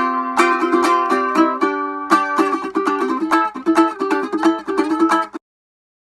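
Instrumental music played on a plucked string instrument, quick picked notes, that cuts off suddenly near the end.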